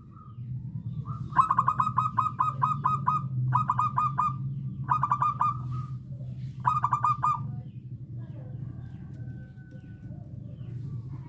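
Zebra dove (perkutut) singing: four bursts of rapid staccato cooing notes, the first the longest, with pauses between them, over a steady low hum.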